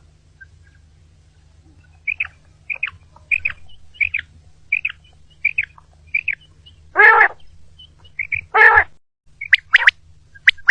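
Common quail calling: a run of short, high chirping notes about every 0.7 s starting about two seconds in, then two louder, longer, harsher calls, and a few sharp high notes near the end. These are the calls played to lure quail for trapping.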